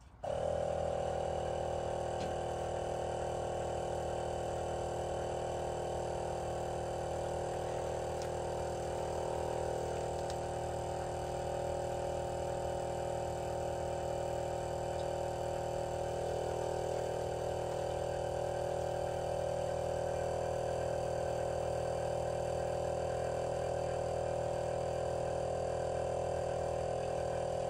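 Small portable air compressor switching on and running steadily with an even hum, pumping up a pickup truck's AirLift air-suspension bags toward 50 psi.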